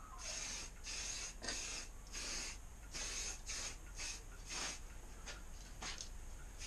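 Repeated short rasping strokes, uneven, about one or two a second, as of a tool scraping or cutting.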